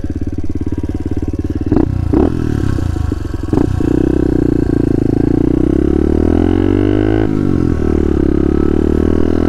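SSR pit bike's small single-cylinder four-stroke engine running under way, with a few knocks in the first few seconds. Its pitch climbs steadily in the middle, drops sharply about seven seconds in, then holds steady.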